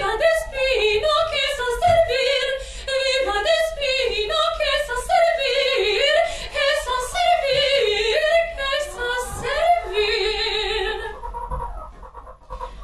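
A woman's voice singing opera-style, unaccompanied, with a wide vibrato and sliding, wavering notes. It ends on a held note and fades out near the end.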